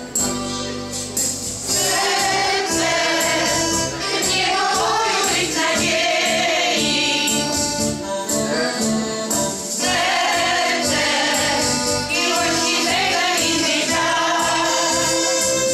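A small mixed choir of older women and a man singing a Polish song together, over instrumental backing with a steady beat.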